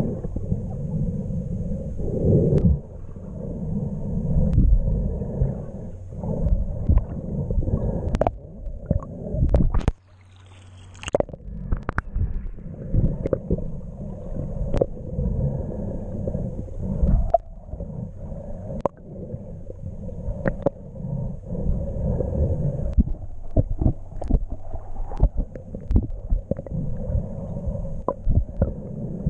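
Muffled underwater noise picked up by a camera in a waterproof housing: a low rumbling and gurgling of water moving around it as it travels through the water, with scattered clicks and knocks. About ten seconds in the rumble drops away suddenly for a moment, then resumes.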